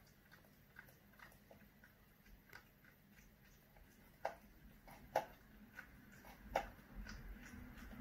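A cat chewing its food from a plastic bowl: faint, irregular crunching clicks, with three sharper, louder ones in the second half.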